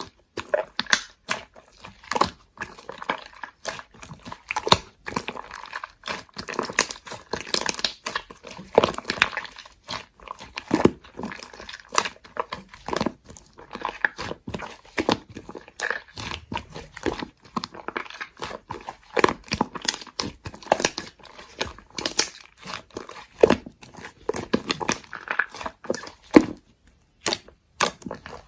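Slime being squished and stretched by hand, giving a run of irregular sticky clicks, pops and crackles.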